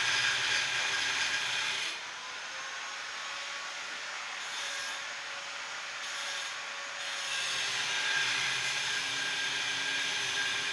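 Steady rubbing and scratching on paper, as a letter is coloured in, over a faint constant hum; the rubbing eases off for a few seconds in the middle.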